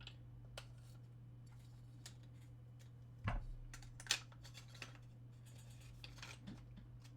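Scattered small clicks, taps and a light scrape from handling lightsaber hilt parts as a battery pack and cap are fitted and locked in. Two sharper knocks stand out about three and four seconds in.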